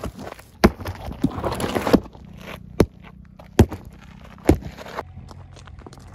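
A big cardboard box set down and scraped across stony dirt, then sharp footsteps on the stony ground, roughly one a second.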